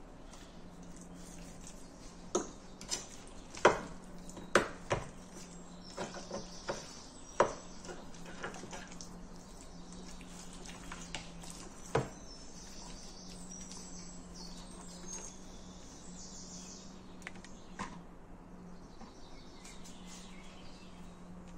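Metal fork clinking and scraping against a stainless steel tray while pork chops are turned in their marinade: about a dozen sharp clinks, most of them in the first half, with one more late on. A steady low hum sits underneath.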